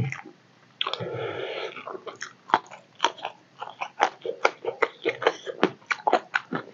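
Close-miked mouth sounds of a person eating fish curry and rice by hand: a wet, noisy stretch of about a second near the start, then chewing and lip-smacking as many quick wet clicks.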